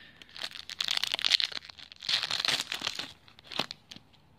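Foil wrapper of a Pokémon card sampling pack crinkling as it is torn open, in two spells of dense crackling, followed by a single sharp tick.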